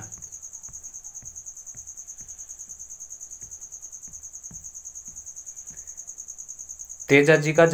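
A steady high-pitched insect trill, pulsing about ten times a second, runs under a few faint low taps. A man's voice starts near the end.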